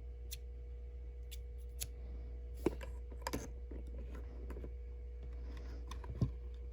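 Scattered light clicks and taps of packaging and items being handled, with a few sharper knocks, about a third of the way in, near the middle and near the end, over a steady low electrical hum.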